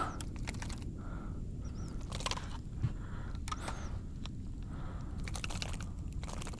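Handling noise: sporadic light clicks and taps over a low steady rumble, as a small, just-caught speckled trout and its lure are handled.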